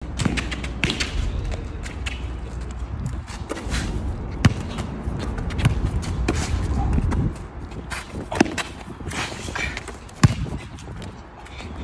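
Basketball bouncing on an outdoor court as a player dribbles, a series of sharp knocks at uneven intervals, over a low rumble that drops away about seven seconds in.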